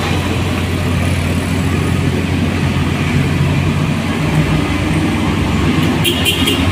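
Heavy cargo truck's diesel engine running in a steady low drone as it climbs a steep hairpin bend, mixed with the engines of cars following through the curve. A brief high-pitched sound comes about six seconds in.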